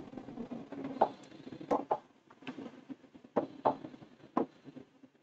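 A few light, irregularly spaced taps and knocks of a stylus on an interactive touchscreen whiteboard as tool menus are selected.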